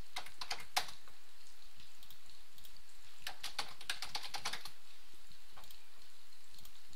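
Typing on a computer keyboard: a short run of keystrokes at the start and a second, longer run from about three to four and a half seconds in.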